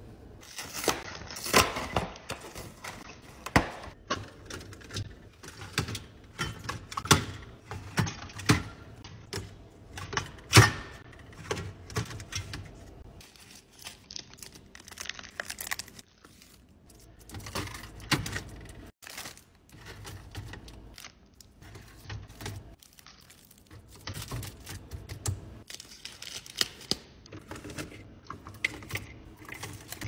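Grocery packaging being handled: plastic shrink wrap crinkling and tearing off a multipack of juice boxes, and bottles and juice boxes clacking into clear plastic fridge bins. The sound is a run of irregular sharp taps and clicks, thinner for a few seconds in the middle.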